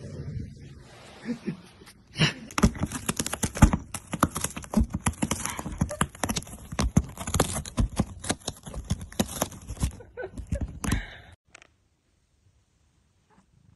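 A cat licking and chewing on clear plastic: a fast, irregular run of crinkling clicks for about nine seconds that stops abruptly.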